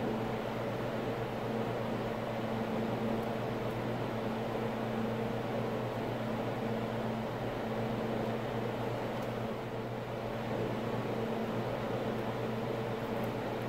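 A steady mechanical hum with a low drone, like a running fan or air unit, holding even throughout.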